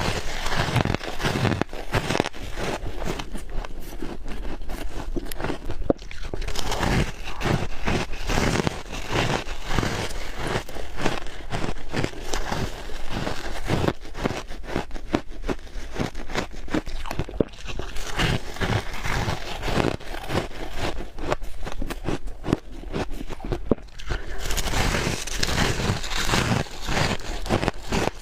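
Soft, squeaky freezer frost being bitten and chewed, a dense run of crunching and crackling bites that continues without pause.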